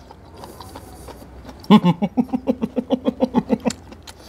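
A man eating: faint chewing clicks, then about two seconds in a short voiced sound followed by a quick, even run of about a dozen pulsing vocal sounds made through a mouthful of food.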